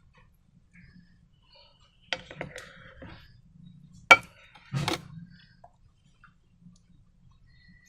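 Objects being handled on a hard surface: a few sharp clicks and knocks, with the loudest single click a bit after four seconds.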